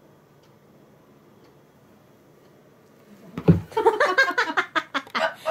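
A cat getting off a sofa: a heavy thump about three and a half seconds in, then a couple of seconds of quick scuffling and rustling. Before that, only faint regular ticking.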